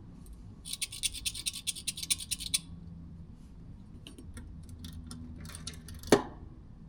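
Rapid scratching strokes for about two seconds, then a single sharp click near the end, over a steady low hum.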